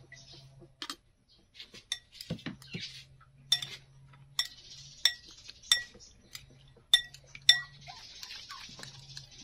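A utensil beating eggs by hand in a bowl: a run of sharp, ringing clinks against the bowl, about one a second, with a wet swishing of the liquid between them.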